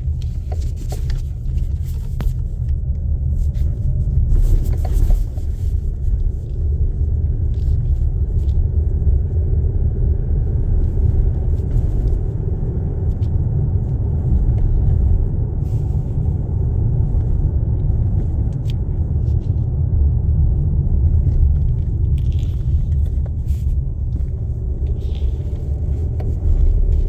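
Irregular knocks from the steering column of a GAC GS8, a sign of a fault in the column, heard over a steady low rumble of the car on the move.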